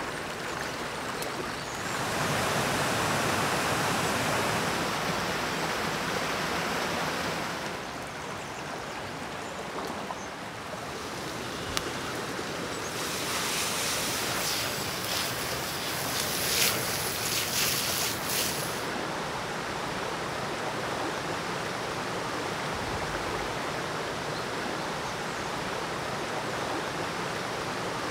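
Steady rushing of a shallow river. For about five seconds midway, a loud crackling hiss rises over it as a frying pan on a campfire flares up.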